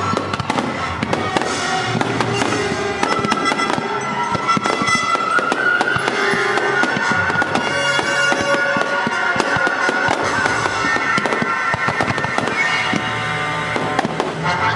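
Fireworks bursting and crackling in quick succession, over music played through loudspeakers for a fireworks show set to music.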